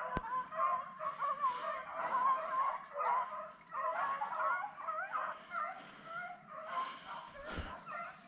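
A pack of beagles and griffons baying together, many overlapping wavering voices without a break: hounds giving tongue on the trail of a wild boar. A single sharp click sounds right at the start.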